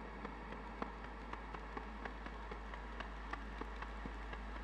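Quiet ambient electronic music from a synthesizer keyboard: a steady low drone and faint held tones under irregular crackling clicks, a few a second.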